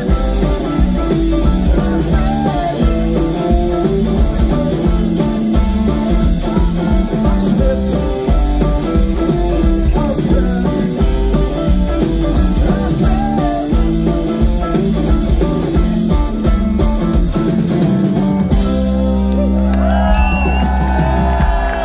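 Live rock band with drums and electric guitars playing loud through a festival PA, heard from within the crowd. About eighteen seconds in the drums stop and the band holds a final chord, and the crowd starts to cheer near the end.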